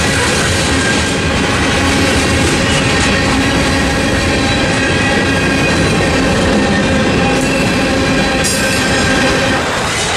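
Freight cars of a mixed freight train rolling through a level crossing: a steady, loud rumble and clatter of steel wheels on rail, with thin high-pitched wheel squeal held over it. A brief sharper metallic clank about eight and a half seconds in.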